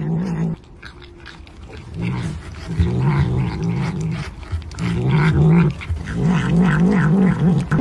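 Tabby cat growling while it eats, licking at a food cup: a low growl that wobbles rapidly up and down in pitch, coming in three bouts, with quick repeated licking smacks.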